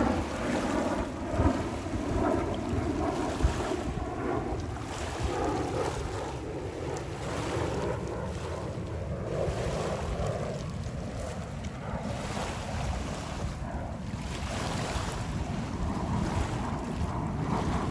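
Military fighter jet flying overhead: a steady jet-engine roar, with wind buffeting the microphone.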